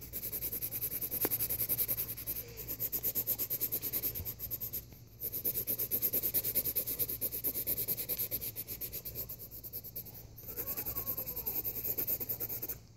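Colored pencil shading fast on paper: quick back-and-forth scratchy strokes, many a second, in four runs broken by brief pauses, stopping suddenly near the end.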